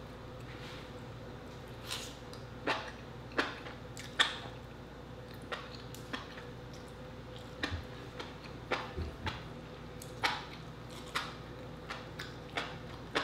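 Close-up eating sounds of a mouthful of instant noodles being chewed: irregular wet lip smacks and mouth clicks, roughly one every second, over a faint steady hum.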